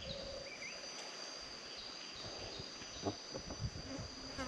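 Outdoor forest ambience: a steady high-pitched insect drone with a few short bird chirps, and a few soft low knocks from about three seconds in.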